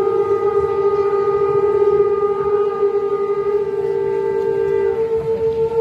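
Several horns blown together in one long held blast, sounding two steady notes at once. The lower note drops out about five seconds in and the higher stops near the end.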